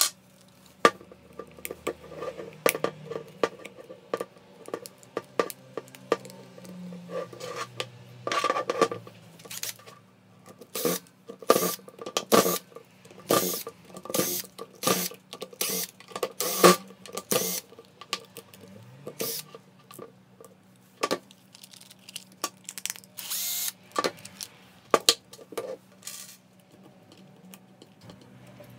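Cordless impact driver run in short bursts, backing out small screws from a plastic tool housing, with clicks and clatter of the tool being handled between runs.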